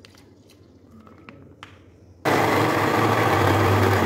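Electric countertop blender switched on a little over two seconds in and running steadily at full speed, blending strawberries and milk in its plastic jar. Before it starts, only faint clicks and the trickle of milk being poured into the jar.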